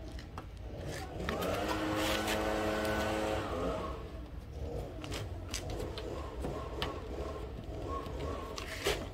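Small engine of a brush cutter (grass trimmer) revving up about a second in, held high for a couple of seconds, then dropping away, over a steady low rumble and a few light clicks.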